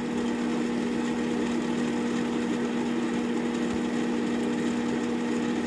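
Intex sand filter pump running steadily in backwash mode, a constant hum, with the flushed water gushing out of the drain hose and splashing onto a metal drain grate.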